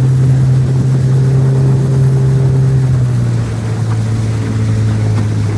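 Motorboat engine running steadily, its pitch dropping slightly a little over halfway through as it eases off.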